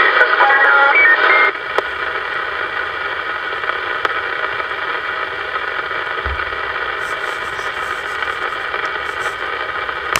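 AM CB radio receiver on 26.035 MHz: a louder, garbled incoming signal with brief whistling tones cuts off about a second and a half in, leaving the steady static hiss of the open channel.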